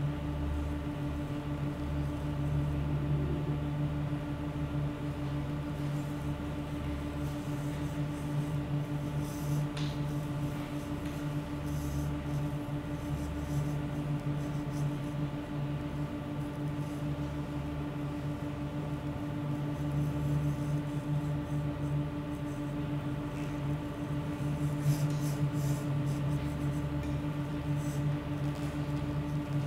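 Ambient electronic drone: several low held tones sounding together, over a deep rumble that cuts in and out in uneven stretches of a second or more.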